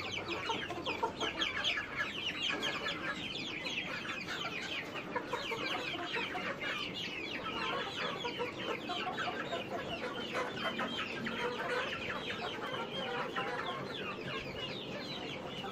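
A flock of kampung chickens (Indonesian native chickens) calling, a continuous chorus of many short overlapping calls.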